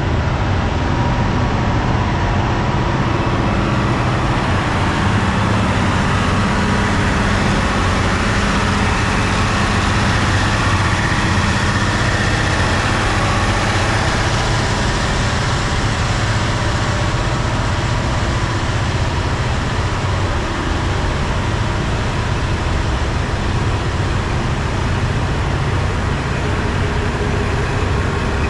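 KiHa 183 diesel railcar's engine idling steadily, with a dense rushing noise over it.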